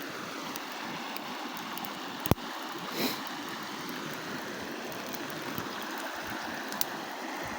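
Small campfire crackling, scattered sharp pops over a steady rushing hiss, with one loud snap a little over two seconds in.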